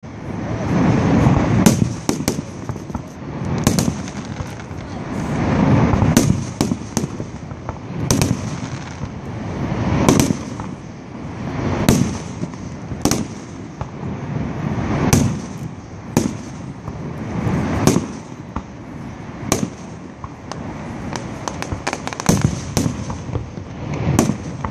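Aerial fireworks display: dozens of sharp cracks from bursting shells, some in quick clusters, over deep rolling booms that swell and fade every couple of seconds.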